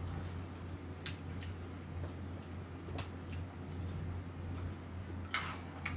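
Eating noises: a few faint clicks and crunches of a person biting and chewing crunchy Yan Yan biscuit sticks, with a short, sharper crunch near the end. A steady low electrical hum runs underneath.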